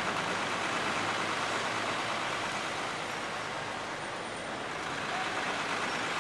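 Steady street traffic noise, cars and trucks passing on a busy road, easing slightly for a moment midway.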